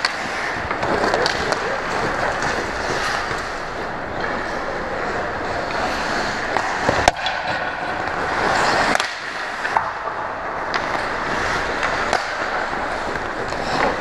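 Ice hockey skates scraping and carving on the ice, with scattered clacks of sticks and puck and one sharp crack about seven seconds in.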